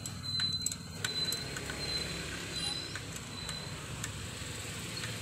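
Faint scattered metal clicks of a spanner working the 10 mm nut on the motorcycle starter motor's cable terminal as it is tightened, over a steady low hum and a thin, steady high tone that comes and goes.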